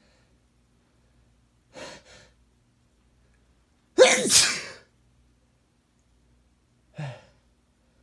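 A man sneezes once, loudly, about four seconds in. It is a deliberately induced sneeze. Two short breath sounds come about two seconds earlier, and a short breathy sound follows near the end.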